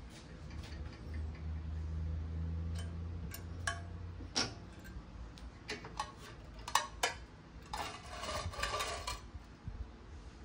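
Drill press running a crimped steel wire cup brush against a rusty steel pan to strip the rust. Under a low motor hum, the wire ticks and clinks irregularly on the pan's metal, with a scratchy stretch of brushing about eight seconds in.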